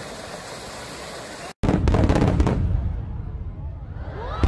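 Fountain jets splashing into their basin. Then, after a sudden cut about a second and a half in, fireworks going off: loud booms and crackling that die away, with more loud bursts near the end.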